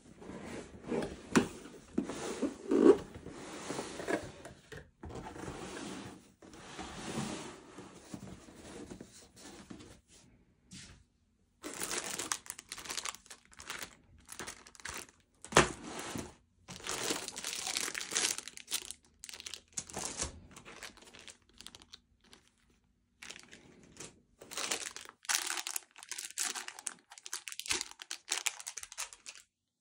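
Cardboard packaging being handled, with the box sleeve sliding and rubbing for the first several seconds, then plastic bags crinkling in the hands in short irregular bursts.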